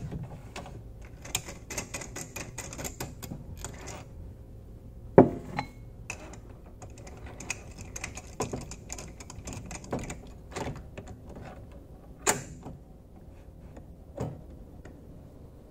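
Metal clicks, clinks and a few sharp knocks from lathe tooling being handled: a live center is taken out of a mini lathe's tailstock and a drill chuck with a twist drill is fitted in its place. A quick run of light clicks comes in the first few seconds, and the loudest knocks come about five and about twelve seconds in.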